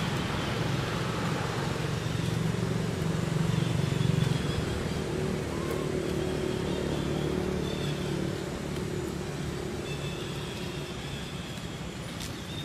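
A motor vehicle's engine running nearby: a low, steady rumble that is loudest about four seconds in and then fades, with a few faint high chirps over it.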